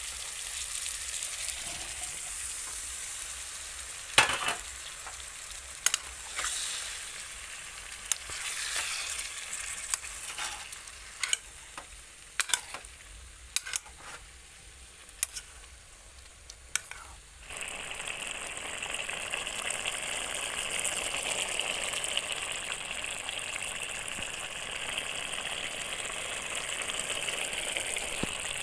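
Cauliflower florets and tomato sizzling as they fry in oil in a pan, with a metal spatula clicking and scraping against the pan a dozen or so times. About two-thirds of the way through, the sound changes abruptly to a louder, steady hissing sizzle as the vegetables cook in their wet masala gravy.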